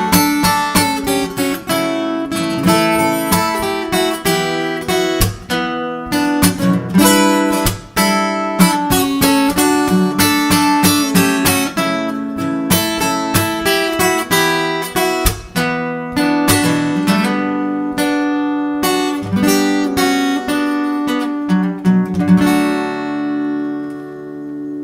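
Acoustic guitar played fingerstyle, picking a melody over bass notes, then closing on a chord left to ring out and fade near the end.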